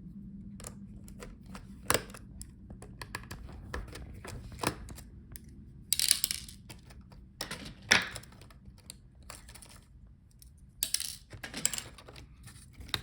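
Laptop parts being handled during disassembly: scattered small hard clicks and clatters of plastic and metal, with two brief scraping rustles.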